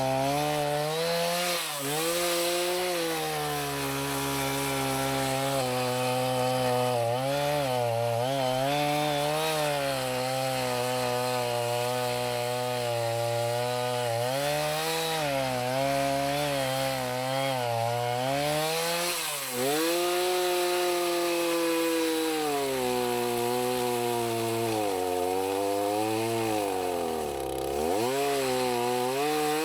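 Two-stroke chainsaw cutting through a dead white oak log, the engine note sagging under load and rising again throughout, with a sharp drop and recovery about two-thirds in and again near the end.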